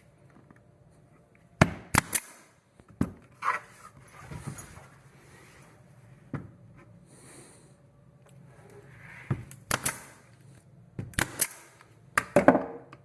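A 23-gauge pin nailer firing sharp shots into a wooden cleat: a group of about four near the start and a quicker run of about six near the end.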